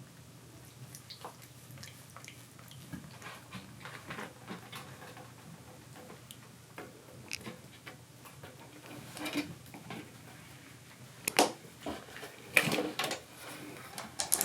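Kittens playing in their playhouse: light scattered taps, ticks and scratching from paws and claws, with a few louder knocks and scrapes near the end.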